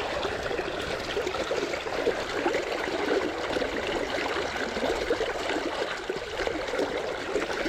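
River water running over stones in a shallow riffle: a steady rushing babble with no breaks.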